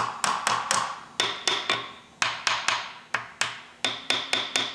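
A hammer tapping on the steel flywheel bolts at the crankshaft flange of a Willys F-head 134 engine, driving them loose to free the flywheel. The taps are light and metallic, each ringing briefly, and come in quick runs of three to five at about four a second.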